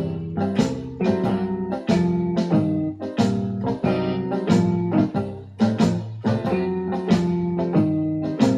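Electronic keyboard playing blues with an organ-like voice: sustained chords over a moving bass line, struck again and again.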